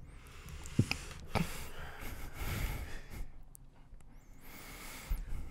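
Stifled laughter: breathy exhales and held-in laughs over the first few seconds, with a couple of small clicks, then fading.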